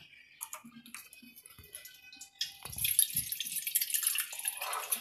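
Faint clicks and handling, then about halfway through water starts running and splashing, with a few dull knocks as it begins.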